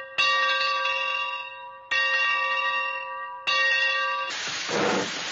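A bell struck three times, each strike ringing out and fading before the next. Near the end a loud rushing, hissing noise takes over.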